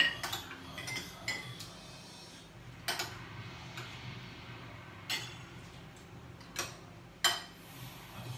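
Spoons clinking and scraping against plates and cooking pots as people eat. There are about half a dozen sharp clinks at irregular times, the loudest right at the start and about seven seconds in.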